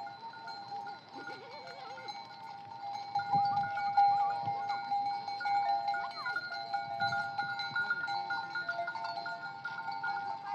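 A flock of sheep bleating, loudest a few seconds in, over a steady high-pitched tone.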